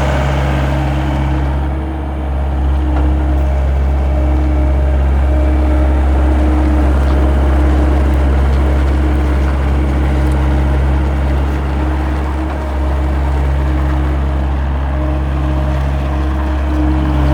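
John Deere CT322 compact track loader's diesel engine running steadily, with brief dips in level about two seconds in and again after twelve seconds.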